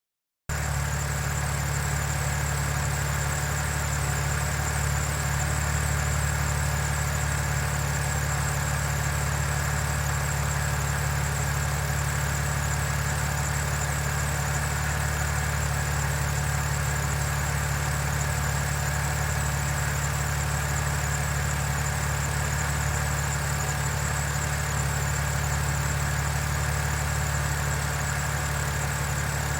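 BMW N52 straight-six engine idling steadily. The owner reports it free of hydraulic valve lifter tick.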